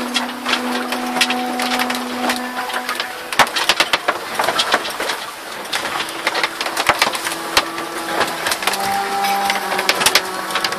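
Sailboat cabin creaking and clicking while under way: a dense run of irregular crackles and knocks, with a few drawn-out creaking tones that hold steady and then shift in pitch.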